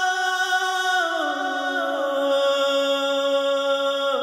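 Background score: a single voice holding a long chant-like sung note, which slides down to a lower pitch about a second in and holds there.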